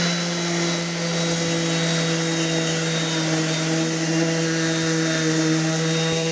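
DeWalt 5-inch random orbit sander running steadily as it sands the edge of an oak cabinet door: a constant motor hum under the scrubbing hiss of sandpaper on wood.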